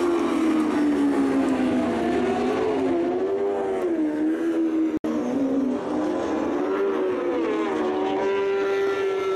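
Moto2 racing motorcycles' Honda 600 cc inline-four engines running on track, their revs rising and falling, with a brief sudden dropout about five seconds in.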